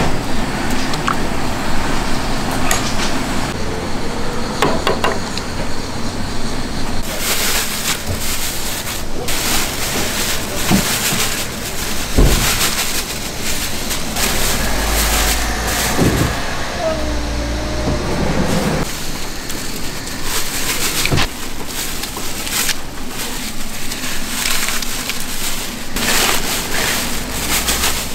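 Busy food-stall kitchen ambience: utensils and dishes clattering and knocking, with background voices under a steady hiss.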